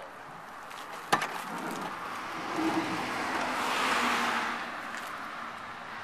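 A sharp click about a second in, then a car passing by, its rushing tyre noise swelling to its loudest about four seconds in and fading away.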